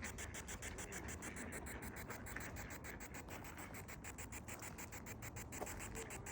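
Faint scratchy rustling over a steady low hum and hiss, with a few light ticks near the end.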